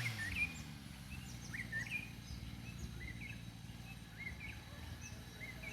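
Birds chirping: many short rising and falling chirps, a few each second, over a low steady hum.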